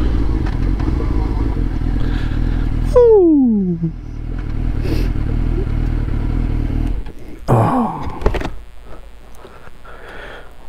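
2004 Suzuki GSX-R 600's inline-four engine running with a steady low rumble. About three seconds in the revs drop in one sharp falling sweep. The engine sound stops about seven seconds in, followed by a few short clatters and scrapes.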